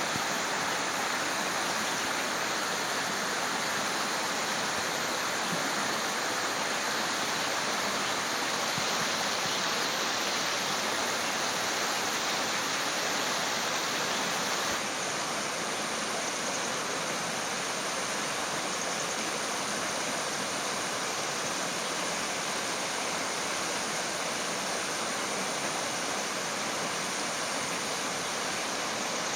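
Steady rush of flowing water, an even hiss without distinct splashes. It drops slightly in level about halfway through.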